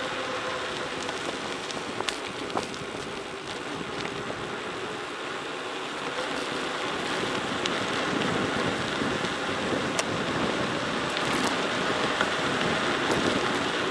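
Tyres rolling fast down a gravel forest road: a steady hiss with scattered clicks and knocks from stones and the bike, mixed with wind on the microphone, growing louder about halfway through as speed picks up.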